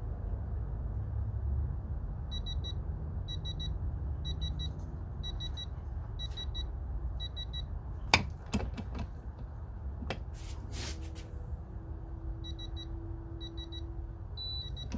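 Digital torque adapter beeping in quick double beeps, about two a second, the signal that the set torque of about 30 ft-lb has been reached. The beeping runs for several seconds, stops, and comes back near the end. A sharp click and a few knocks come about eight seconds in.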